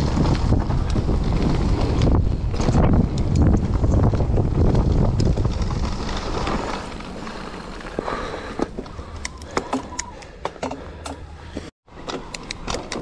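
Wind rushing over the camera microphone and tyres rumbling over a dirt trail as a mountain bike descends, loud at first, then quieter with rapid ticks and rattles from the bike over the second half. The sound cuts out for a moment near the end.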